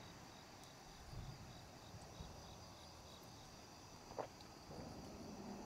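Night insects chirping faintly: a steady high trill with a pulsing chirp about three times a second. One short tap a little after four seconds in.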